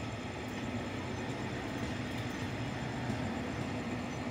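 Passenger coaches of an express train rolling past as it pulls out of the station: a steady rumble of steel wheels on the rails.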